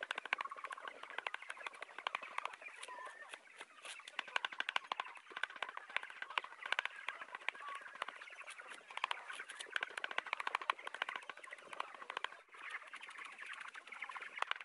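Kitchen knife rapidly chopping leafy greens on a wooden block, fast even strokes several times a second with one short break near the end. Birds chirp in the background.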